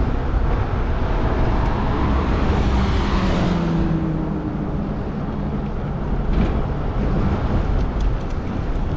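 Road traffic with a car passing close by about three seconds in: its hiss swells, then its engine note drops in pitch as it goes by, over a steady low rumble of road and wind noise.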